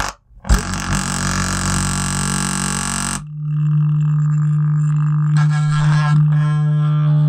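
Energy 8-inch woofer, its voice coil knocked out of the spider and glued back in, driven with test tones from a tone-generator app. First comes a distorted, buzzing low drone. About three seconds in it changes to a steady, higher hum, with a fast rattle near the end.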